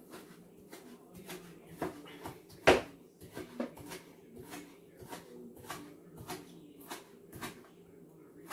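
A chef's knife cutting pork belly on a plastic cutting board: short irregular taps of the blade on the board, about two or three a second, with one louder knock about two and a half seconds in.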